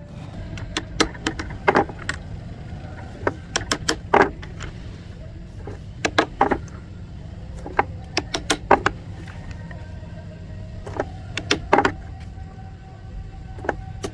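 Irregular sharp taps and clicks of hand work in a workshop, coming in small clusters, over a steady low hum.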